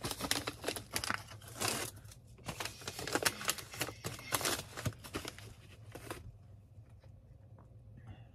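Packing material crinkling and rustling as an item is wrapped and packed for shipping. The handling is busy for about six seconds, then dies down to a faint steady hum.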